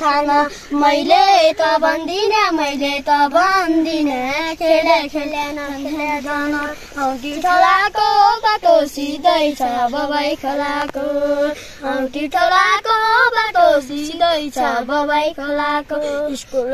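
A boy and a girl singing together without instruments: one high, continuous melody with long held notes and phrases that rise and fall.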